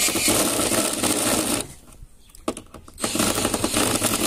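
Power drill backing a screw out of wood, its motor running for about a second and a half, stopping, then starting again about three seconds in.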